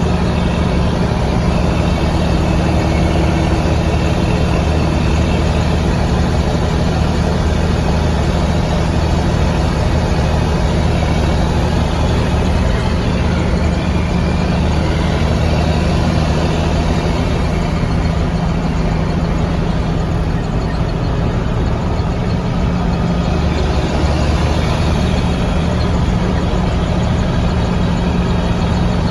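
Mack B-61 truck's diesel engine running at a steady engine speed, with a deep, even note throughout.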